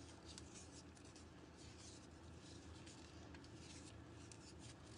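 Faint, irregular scraping and scuffing of a wooden spoon stirring stiff flour dough in a glass mixing bowl.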